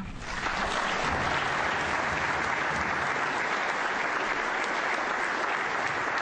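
Audience applauding, breaking out at once and holding steady.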